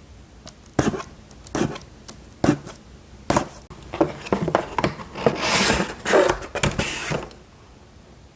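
Cardboard shipping box being opened by hand: four sharp knocks about a second apart, then a few seconds of scraping and rustling of cardboard and packing.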